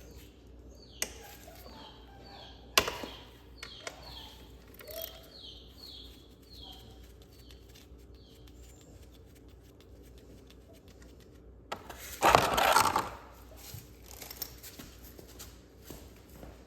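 Hand tools working on the dirt bike's oil drain bolt: a couple of sharp metal clicks, then a louder, rasping burst of about a second, like a ratchet being worked, two-thirds of the way through. Birds chirp in the background with short falling calls, mostly in the first half.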